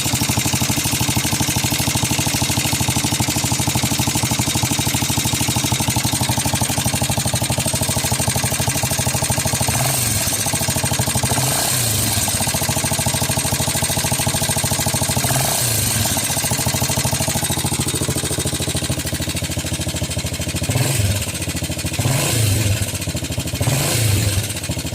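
162FMJ single-cylinder four-stroke 150cc motorcycle engine running with a fast rhythmic knock, the problem the owner wants diagnosed. It idles steadily, then is revved briefly several times in the second half.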